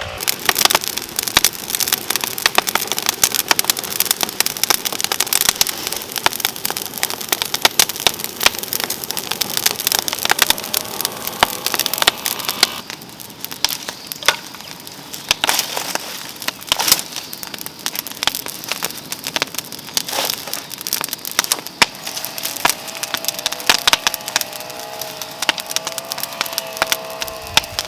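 Dense, irregular crackling and snapping, with louder single cracks scattered through. A faint wavering tone sounds underneath briefly about halfway through and again near the end.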